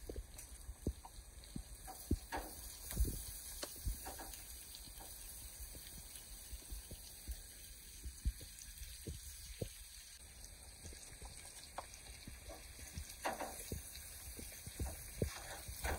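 Metal tongs clicking and scraping against a gas grill's grate as steaks are turned, over a faint steady hiss of the meat sizzling. The clicks come irregularly, more of them at the start and near the end.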